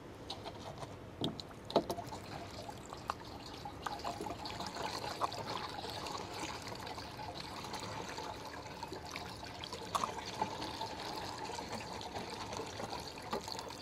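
Water trickling and sloshing as a powder is mixed into it, with a few soft knocks.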